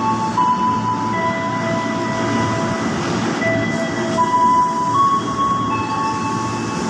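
KRL Commuter Line electric train running alongside the platform: a steady rumble of wheels on rails, with an electric whine whose pitch jumps between a few steady notes several times.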